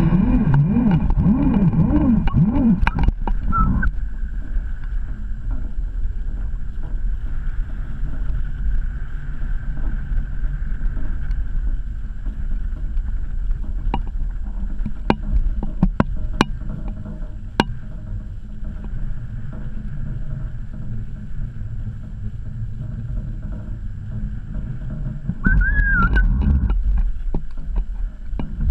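Wind buffeting a camera mounted high on a sailboat's mast, a steady low rumble, with a wavering low moan in the first few seconds and a few sharp clicks around the middle.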